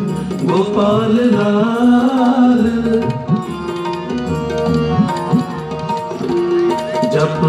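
The show's soundtrack playing over its sound system: a voice singing a melody with tabla accompaniment.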